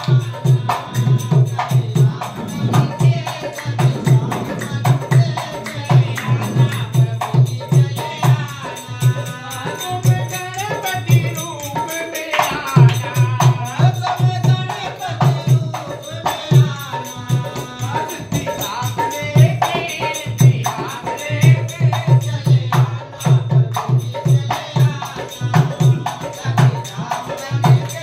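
A dholak barrel drum played by hand in a fast, steady dance rhythm, with a voice singing over it through the middle stretch.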